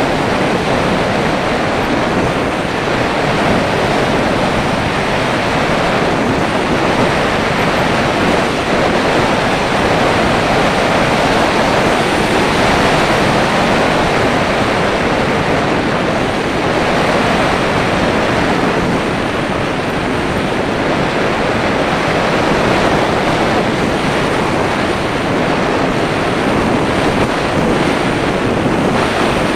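Steady rush of wind noise from air streaming over the microphone of an action camera riding on the nose of a Breta Models Starlite slope-soaring glider in flight.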